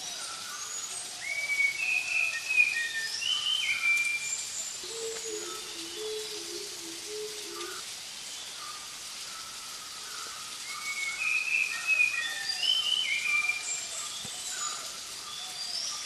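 Bird chirps and whistles over a steady hiss, with a low stepped two-note figure between them. The same phrase of calls comes twice, about ten seconds apart, as in a looped nature soundtrack.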